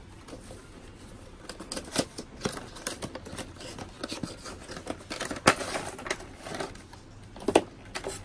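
Cardboard product box and clear plastic packaging being handled: the box flap is opened and a plastic tray is pulled out. This makes a rustle and scrape with several sharp clicks, the loudest about halfway through and again near the end.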